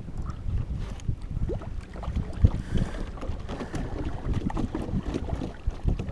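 Wind buffeting the microphone aboard a small boat, a low rumble with scattered light knocks and taps from the boat and its gear.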